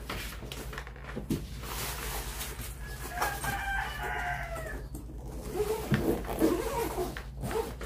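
A rooster crowing once, starting about three seconds in and lasting over a second, slightly falling at the end, over a steady low hum.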